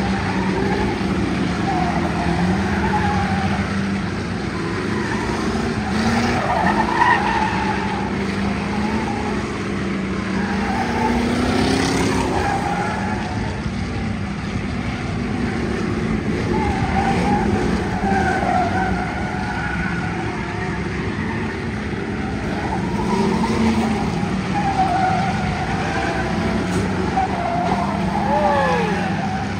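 Several race car engines running and revving as a field of old sedans, Crown Victorias among them, laps the track, with tires skidding through the turns. It is a continuous racket that swells and fades as cars pass, with a falling whine near the end.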